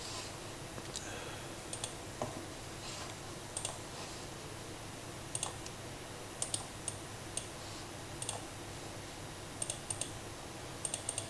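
Scattered clicks of a computer mouse, several in quick pairs, over a faint steady hiss.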